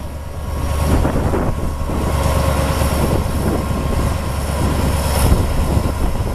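Diesel-electric locomotive running with a steady low drone as it hauls a passenger train slowly along the track, with a light hiss of wind on the microphone.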